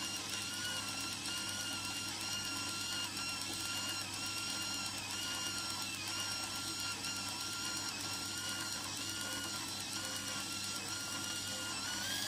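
Fujica Auto-7 compact camera's built-in motor auto-rewinding a finished 24-exposure roll of film: a steady whirring whine whose pitch wavers slightly.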